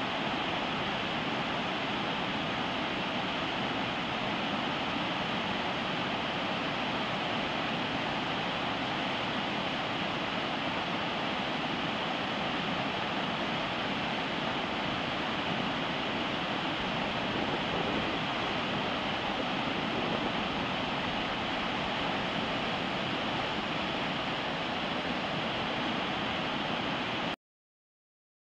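Steady rush of whitewater rapids tumbling over boulders, even throughout, cutting off abruptly near the end.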